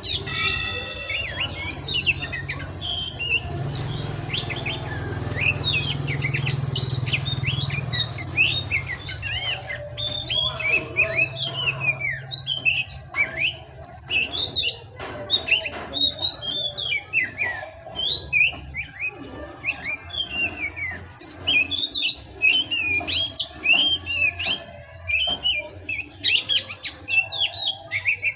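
Oriental magpie-robin (kacer) singing a fast, varied song of rapid whistles and chirps, with a low hum underneath for several seconds in the first half.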